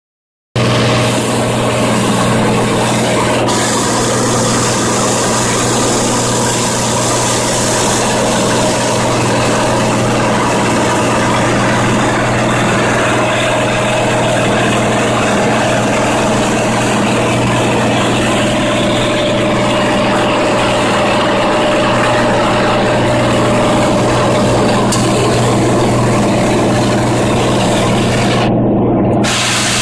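Steady drone of a Cirrus single-engine airplane's piston engine and propeller in flight, heard inside the cockpit cabin.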